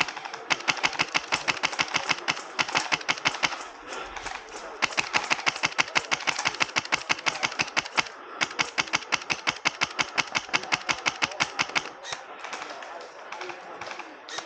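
Wolverine MTW HPA airsoft rifle firing long full-auto bursts, a rapid even stream of sharp clacks, with short pauses between bursts; the firing stops about twelve seconds in.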